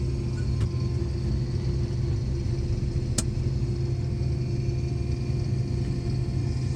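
Combine harvester running steadily in corn: a constant low engine drone with a steady hum. A single sharp click about three seconds in.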